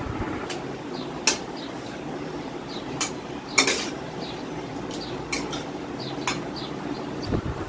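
Steel utensils clinking and scraping against steel cookware: a spatula stirring mushrooms frying in a steel wok, with about six sharp clinks spread across the few seconds.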